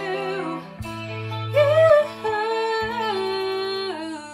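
Female voice singing long held notes without clear words over an instrumental backing track. The voice steps up in pitch about a second and a half in and ends on a note sung with steady vibrato.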